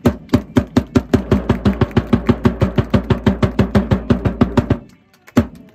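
Supporters' drum beaten in a fast, even rhythm of about eight beats a second, stopping a little before the end, then one last single beat.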